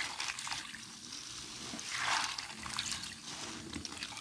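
Hands scrubbing black beans in a pot of water: water swishing and trickling with small clicks, swelling into a louder splash about two seconds in.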